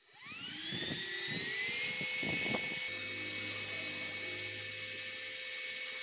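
Small CPU cooling fan switched on, spinning up with a rising whine that levels off after about two seconds into a steady high whir with air rushing.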